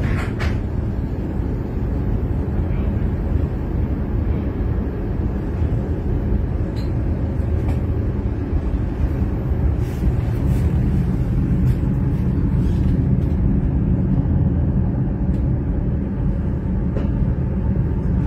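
A Tatra tram running, heard from inside the passenger saloon: a steady low rumble with a few sharp clicks now and then.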